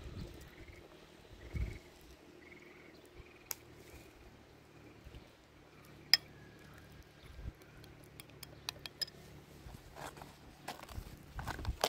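Scattered light clicks and clinks, like utensils or dishes being handled, the sharpest about six seconds in and a run of them near the end, over a faint background with a soft high chirp repeating about twice a second near the start.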